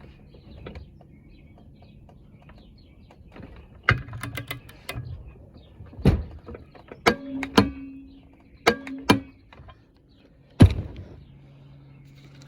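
Sharp metallic clicks and clanks as a bolt is tightened by hand with a torque wrench, some in quick runs and some followed by a brief ring. No impact wrench hammering is heard.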